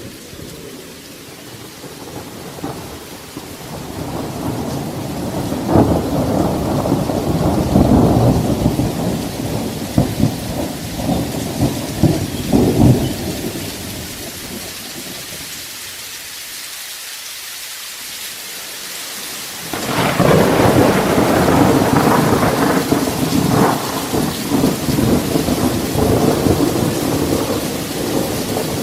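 Thunderstorm: steady rain with rolling thunder. Rumbles build over the first few seconds with several sharp cracks, ease off to rain alone around the middle, then a loud clap about twenty seconds in sets off long rumbling.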